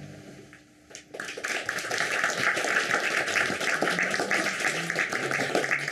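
The last note of the music fades out, then about a second in an audience breaks into steady applause that goes on for about five seconds.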